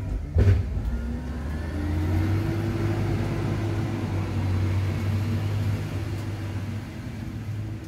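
Steady low hum of a motor vehicle, with a pitched tone that rises slightly about two seconds in and then holds. A single sharp thump comes about half a second in.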